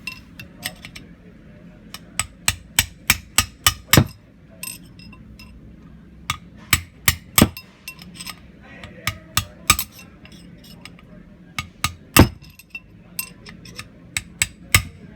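Hammer blows on metal, knocking a worn wheel bearing out of the back of a wheel: sharp ringing strikes in runs of several quick blows with short pauses between.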